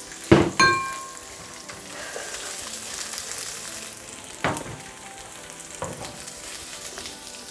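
Diced red onion and bell pepper sizzling in hot oil in a frying pan as they are stirred. Two sharp knocks of a utensil against the pan come near the start, the second leaving a ringing metallic tone, and a few softer knocks follow later.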